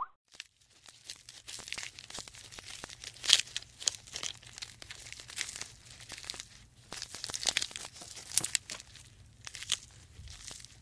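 Giraffe browsing in a tree, tearing and stripping leaves from the branches: irregular crackling, snapping rustles that start about half a second in.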